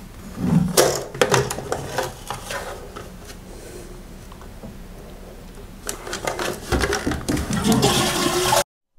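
Plastic clicks and rattles of a concealed-cistern flush plate and its button mechanism being pressed and handled, with a quieter stretch of faint steady hiss in the middle and more clattering later; the sound cuts off suddenly near the end.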